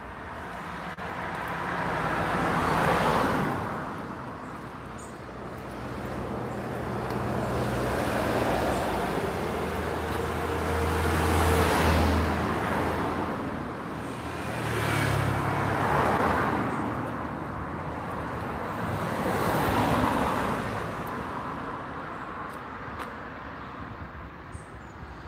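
Cars passing close by on the road one after another, each swelling up and fading away. About five go by, the last about twenty seconds in, after which the traffic noise dies down.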